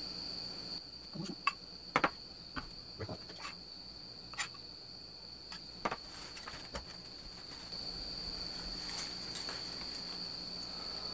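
Light clicks and taps of a ladle and utensils against a frying pan as pancake batter is poured and spread, over a steady high-pitched tone.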